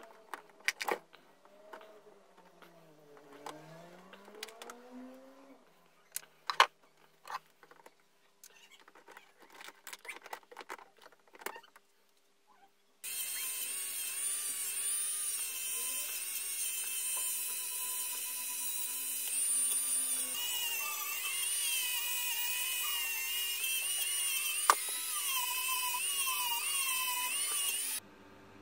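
Scattered light clicks and taps of small parts being handled. Then, about halfway through, a handheld rotary tool starts up and runs for about fifteen seconds with a high-pitched whine that wavers in pitch as it is pressed against a rusty metal part of an electric planer, working the rust off. It cuts off abruptly near the end.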